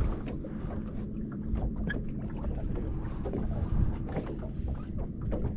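Steady low rumble of wind on the microphone and water against a fishing boat's hull, with a few light clicks and knocks.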